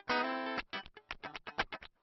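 Background music: guitar playing a held chord, then a run of short plucked notes.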